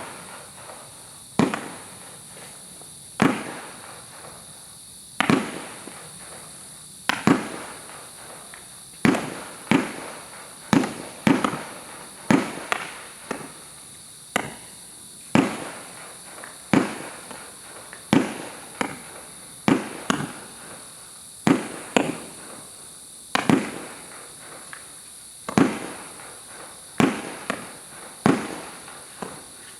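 Category 4 88-shot firework cake firing shot after shot, about one a second at an uneven pace. Each shot is a sharp bang that trails off quickly.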